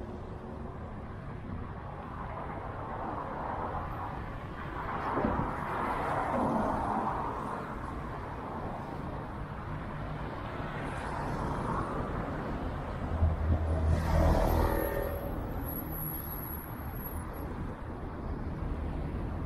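Street traffic: cars driving past, with two louder pass-bys that swell and fade, one about five seconds in and a stronger one with a deeper engine rumble about fourteen seconds in.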